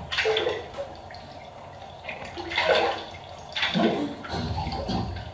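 Live electronic sound poetry: irregular noisy bursts with short fragments of a woman's voice run through live processing, mixed with algorithmically generated electronic sound.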